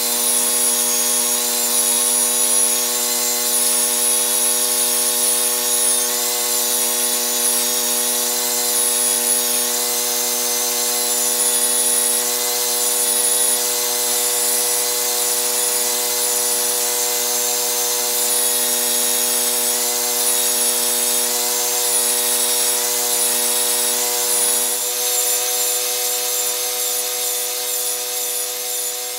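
Black+Decker handheld belt sander running steadily with a motor whine, an old sanding belt grinding forge scale off a steel piece down to bare metal. The whine dips slightly again and again as the steel is pressed onto the belt.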